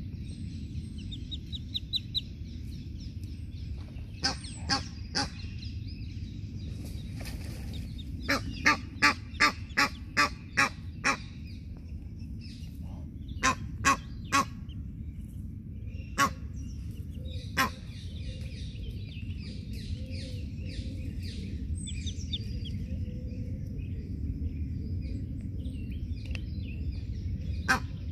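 Adult Egyptian goose giving short, harsh honks in bouts, with a quick run of about eight honks near the middle and single honks after it: scolding an intruder that has come close to its goslings. Goslings' faint thin peeping between the honks.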